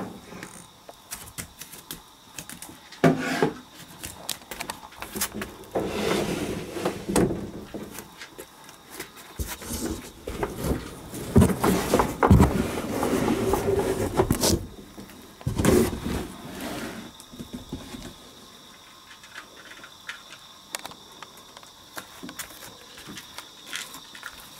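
Handling noise from a handheld camera moved about in the dark: irregular rustles, knocks and scrapes, heaviest over the first two-thirds, after which only faint clicks remain.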